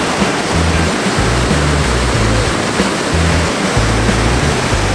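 Steady rush of a mountain river's whitewater rapids tumbling over rock ledges, under background music with a stepping bass line.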